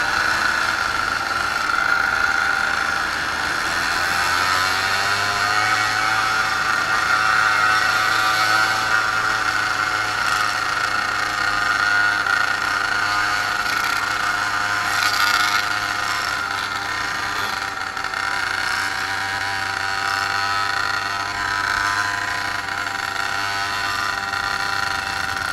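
Small two-stroke moped engines running at steady riding speed, a continuous drone whose pitch rises a little about five seconds in and then holds, with wind noise over it.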